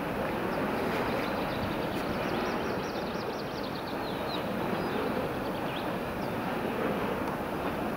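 Steady rushing wind at the foot of a large wind turbine whose rotor is turning. A run of quick, high chirps comes through about two to four seconds in.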